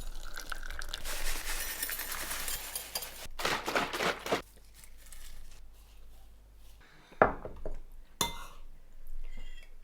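Household handling sounds: light clinks and rattles of glassware or dishes, with a sharp click about seven seconds in.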